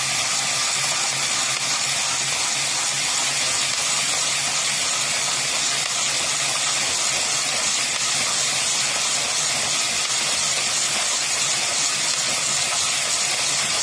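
A cordless drill spinning a 22-needle Addi Express Professional circular knitting machine at speed: the drill motor and the machine's needles run together in one steady, kind of loud whirr as rows of a hat are knitted.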